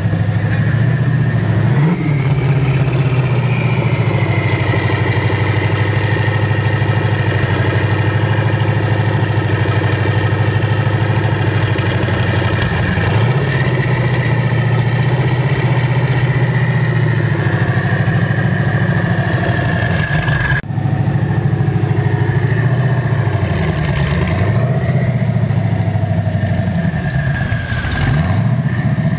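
Hennessey Venom GT's twin-turbo V8 idling steadily and loud, with a steady high whine above the engine note. The idle dips briefly a couple of times near the end.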